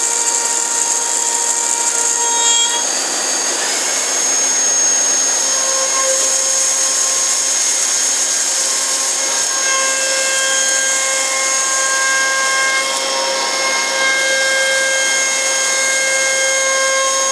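Milling machine cutting aluminium: a steady, high-pitched cutting whine made of several held tones over a hiss of chips and spindle noise. The tones shift about three seconds in.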